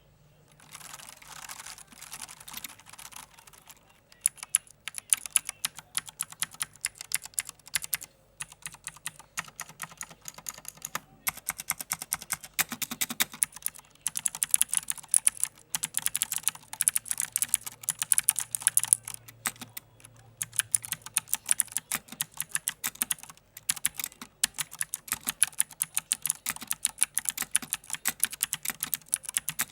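Typing on a mechanical keyboard with Cherry MX Blue clicky switches: a fast, uneven stream of sharp keystroke clicks with brief pauses.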